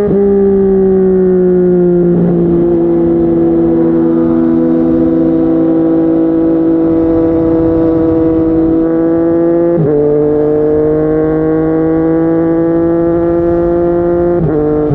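Yamaha MT-09's inline three-cylinder engine running at speed through a Yoshimura R55 slip-on exhaust. The pitch eases off, then holds and slowly climbs, with abrupt steps about ten seconds in and again near the end as gears change.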